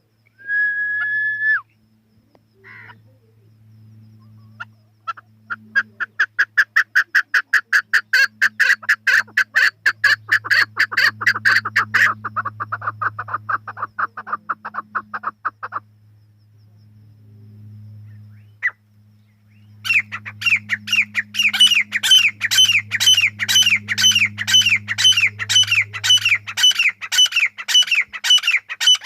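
Chukar partridge calling. A short held note comes first, then a long run of quick, evenly repeated clucking notes; after a pause, a run of notes that each drop in pitch follows, about two a second. A low steady hum runs underneath.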